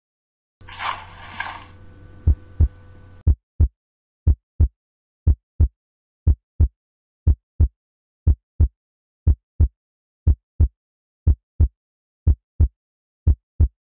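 Heartbeat sound effect: a steady lub-dub double thump about once a second, following a brief noisy rush over a low hum in the first few seconds.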